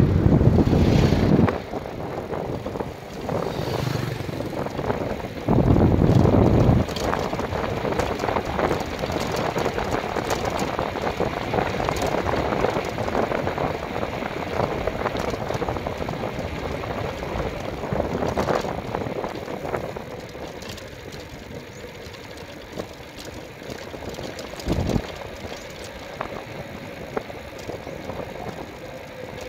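Small motorcycle engine running steadily on the move, with a rattle and wind buffeting the microphone in loud low gusts at the start and again about six seconds in; it gets quieter over the last third.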